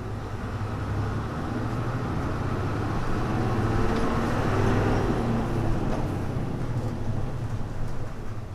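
Hino Blue Ribbon U-HU2MLAA city bus engine running under way. Its note climbs in pitch and loudness for about five seconds as the bus accelerates, then drops away as the driver eases off. The sound is muffled, typical of early-1990s buses of this model.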